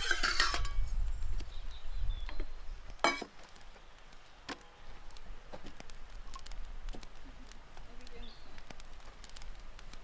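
Scattered sharp clicks and clinks of small hard objects being handled, with a clattering burst at the start and a quick rattling run of clicks about three seconds in.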